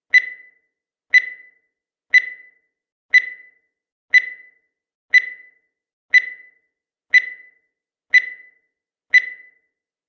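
Countdown timer sound effect: a short, high-pitched beep once every second, each one quickly dying away, ten in a row.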